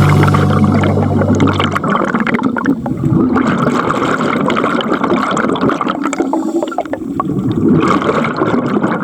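Water gurgling and bubbling in irregular swells, with fine crackle, as picked up by a diving camera. Background music fades out in the first two seconds.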